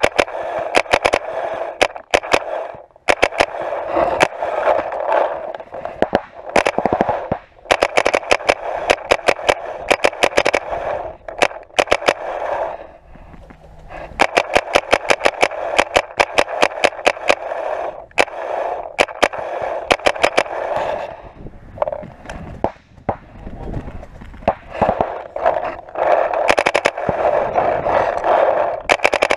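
Paintball markers firing in rapid strings of shots, many shots a second, in repeated runs separated by short pauses.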